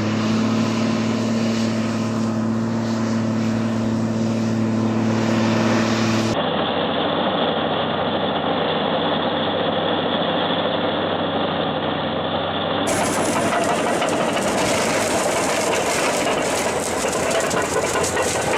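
Heavy machinery engines running steadily, in three separate recordings cut together: the first has a steady low hum with clear engine tones, and the sound changes abruptly about six seconds in and again about thirteen seconds in.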